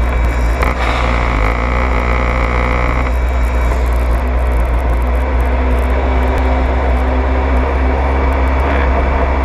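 Bosch cordless leaf blower running close to the microphone over a steady low drone; its higher whine drops away about three seconds in.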